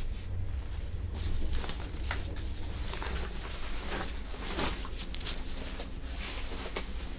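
Interior running noise of a passenger train coach pulling into a station: a steady low rumble with a high hiss and scattered clicks and knocks.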